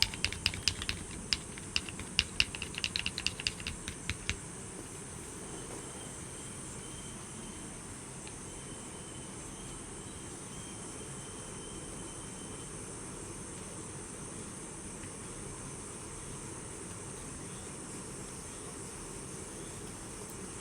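Night nature ambience: a steady hiss of light rain and wind with a steady high buzz over it. A quick, irregular run of sharp clicks or taps fills the first four seconds.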